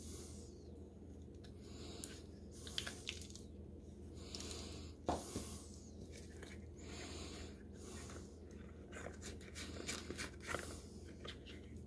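Cured Cement All castings being worked free of thin plastic molds by hand: several bursts of crunching and crackling, with a few sharp clicks, as the plastic flexes and flakes of cement break away.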